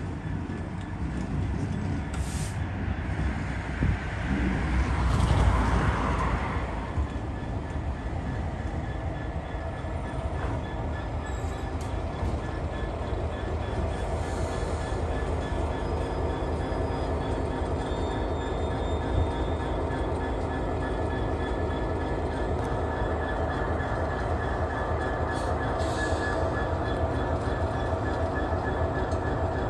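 Class 66 diesel-electric freight locomotive, with a two-stroke V12 engine, running slowly towards and past the listener with a steady engine drone. Around five seconds in, a louder swell of wheel and rail noise rises and fades.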